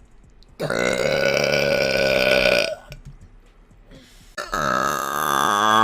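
A woman burping twice: a long, loud burp of about two seconds, then, after a short pause, a second long burp whose pitch wavers and falls near the end.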